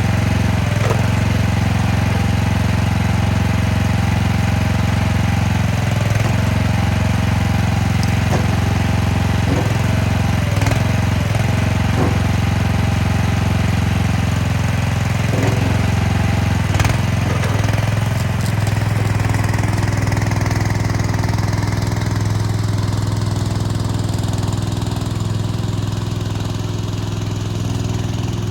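Mini skid steer loader's engine running steadily as the machine works, with several clanks and knocks now and then. The engine's higher tones fade over the last ten seconds.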